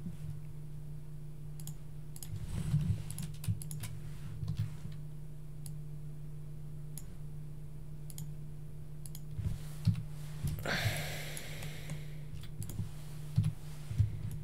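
Computer keyboard keystrokes and mouse clicks, scattered and irregular, over a steady low electrical hum, with one brief hiss a little after halfway.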